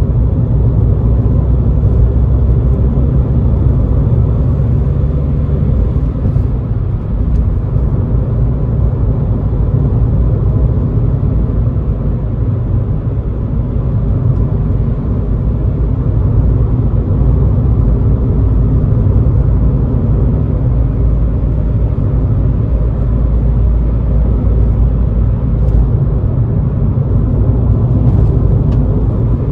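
In-cabin sound of a 2011 Škoda Fabia's 1.6 TDI four-cylinder turbodiesel driving at a steady pace: an even low rumble of engine and road noise.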